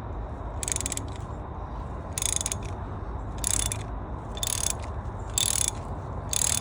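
Socket ratchet with a 5/8-inch spark plug socket clicking in six short bursts, about one a second, as it is swung back and forth to turn a spark plug. A steady low hum runs underneath.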